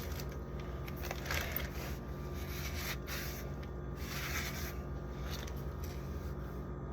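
Condiment bottles and jars being shifted around on a fridge shelf: a few short scrapes and rubs over a steady low hum.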